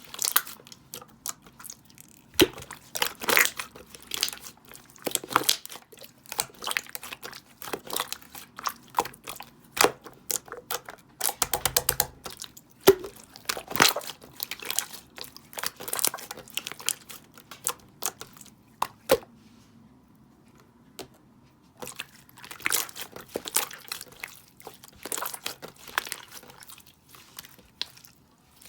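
Slime being squeezed and pressed by hand, making irregular crackling, popping clicks. A dense run of rapid pops comes about twelve seconds in, and a quieter lull comes near twenty seconds.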